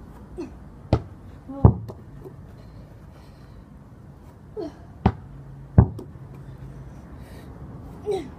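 Basketball thudding on hard surfaces: two pairs of sharp impacts, each pair about three-quarters of a second apart, about a second in and again about five seconds in.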